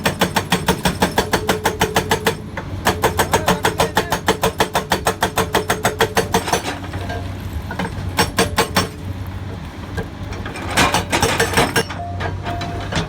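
Excavator-mounted hydraulic rock breaker hammering rock in rapid, even blows, about eight a second, over the steady running of the Komatsu excavator's engine. The hammering breaks off briefly about two seconds in and stops again after about seven seconds, then returns in two short bursts.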